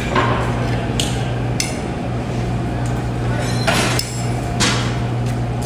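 Metal bar knocking and clinking against hard lumps of burnt moulding sand while breaking up a sand-casting mould at shakeout: about five sharp strikes, two of them close together near the middle, over a steady low hum.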